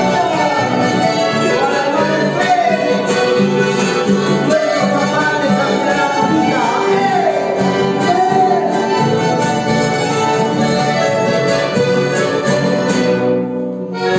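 Live Latin American hymn played on piano accordion, acoustic guitar and a small double-strung lute, with a voice singing over the band. The sound thins briefly just before the end.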